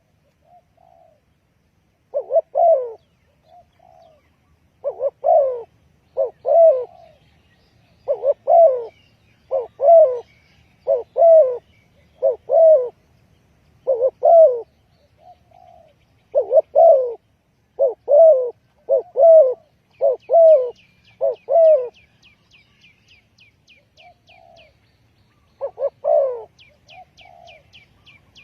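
Spotted dove cooing, a low falling coo repeated in twos and threes about every second or two, with short gaps. A faint rapid series of high chirps, about seven a second, joins it about twenty seconds in and again near the end.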